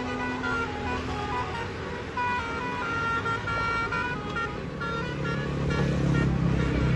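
Tour bus's Basuri multi-tone 'telolet' horn playing a quick tune of short notes, over a bus engine's rumble that grows louder in the last couple of seconds.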